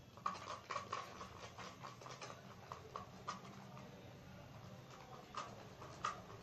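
Homemade slime being stirred in a container: a faint, irregular run of soft sticky clicks and scrapes.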